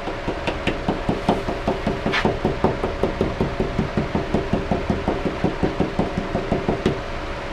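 Fingers rapidly tapping on a repaired surfboard, a fast even run of knocks about six or seven a second that stops near the end, showing the repaired side is solid.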